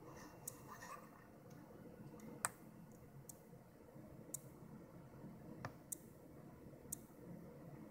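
Small push button being clicked, about seven sharp clicks at irregular intervals, the loudest about two and a half seconds in. Each press fires a 555 one-shot clock pulse that steps the W65C02S CPU on by one cycle.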